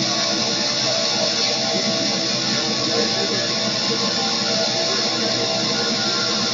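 Noise music played live: a loud, steady wall of distorted electric guitar with many held tones layered in it, no beat and no break.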